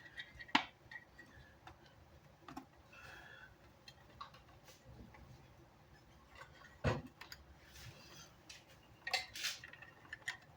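Scattered light clicks and taps of small parts and a hand tool being handled on a workbench during a speaker repair, the loudest click about seven seconds in and a few quick taps after nine seconds.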